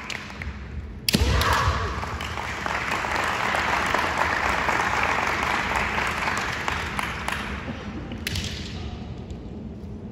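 Sharp crack of a bamboo shinai striking kendo armour about a second in, followed by a few seconds of crowd noise that fades, and another sharp crack near the end.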